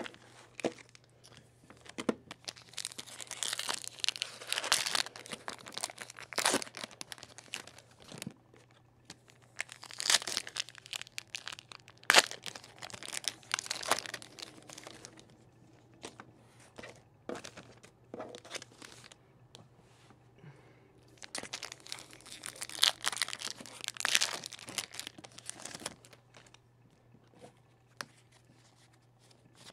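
Foil Pokémon trading card booster packs being torn open and crinkled, in three main bursts of tearing and rustling with quieter card handling between.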